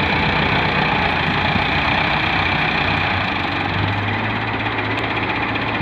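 Diesel engines of a Massey Ferguson 385 tractor and a John Deere 595D wheeled excavator running steadily, with a low engine note growing stronger a few seconds in.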